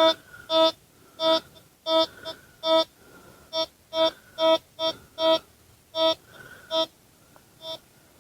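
Metal detector sounding about a dozen short beeps of the same pitch at uneven intervals as the coil is swept, the last beep fainter.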